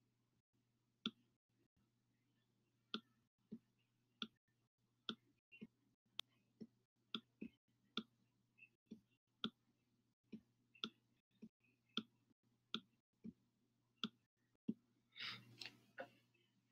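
Faint stylus clicks on a tablet screen while handwriting: about two dozen sharp, separate taps at an irregular one or two a second, with a breath near the end.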